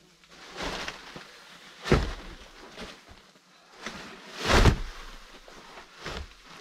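Wooden logs knocking and thudding against each other as they are lifted and laid onto a stacked log wall: a few dull thumps, the loudest about two seconds in and again about four and a half seconds in.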